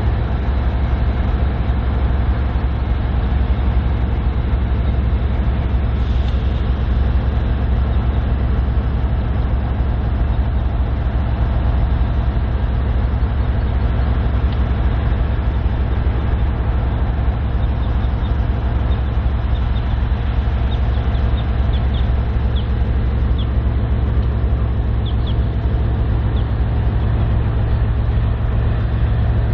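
BNSF GE diesel-electric locomotives pulling hard at slow speed with the sanders on for traction: a loud, steady low engine drone. A few brief faint high squeaks come in during the second half.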